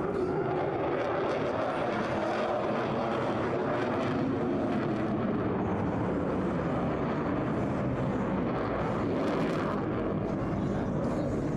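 Steady, unbroken jet noise from an F-22 Raptor's two Pratt & Whitney F119 afterburning turbofans as the fighter pulls a hard turn overhead and moves away.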